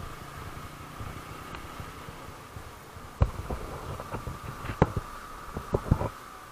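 Motorcycle running at low road speed, heard from a handlebar-mounted camera: a steady low rumble with a faint steady hum above it. A cluster of sharp knocks and thumps comes between about three and six seconds in.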